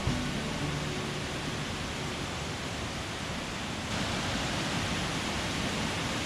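Steady rush of a waterfall, getting louder and brighter about four seconds in.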